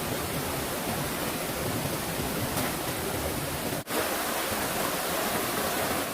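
Steady rushing of water in a forest stream, dropping out for an instant about four seconds in.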